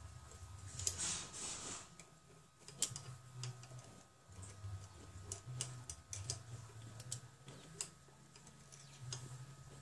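Light, irregular metal clicks and ticks as hands handle and fit a motorcycle's folding footpeg and gear shift lever, with a brief rustle about a second in.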